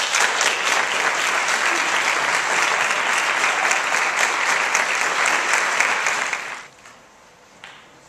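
A crowd applauding, loud and steady for about six and a half seconds, then dying away. There is a single short knock near the end.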